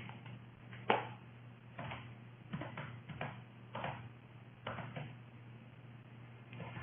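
Computer keyboard being typed on: short, separate key clicks at an uneven pace, over a steady low hum.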